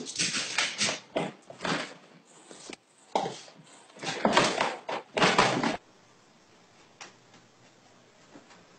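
A scuffle of a cat and a dog on a small padded stool: irregular bursts of scuffling and knocks, which stop about six seconds in.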